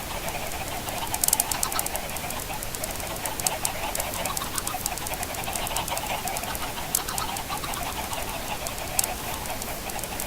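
A flock of chickens clucking and murmuring continuously, with scattered sharp ticks, a cluster about a second in and another near 7 seconds.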